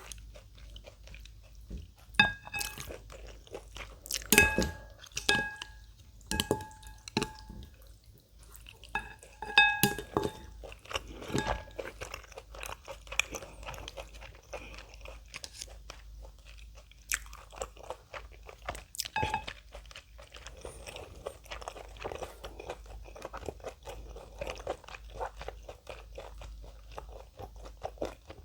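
Close-miked eating sounds: through roughly the first ten seconds, sharp clicks that each ring briefly, like utensils knocking a bowl. After that comes steady crunchy chewing of kimchi and slurping-free mouth noise.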